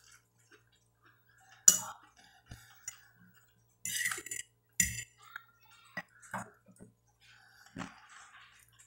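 Metal fork clinking against a glass plate of food: about seven separate sharp clinks and short scrapes spread unevenly over the few seconds.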